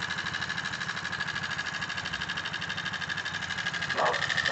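79cc motorized-bicycle kit engine idling steadily, with an even pulsing beat. A short burst of voice comes in near the end.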